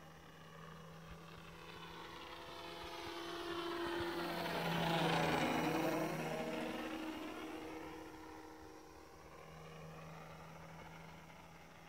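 Electric motor and 10x6 propeller of a Depron foam RC Nieuport 11 biplane flying past low overhead: a motor buzz that swells to its loudest about five seconds in, then fades away.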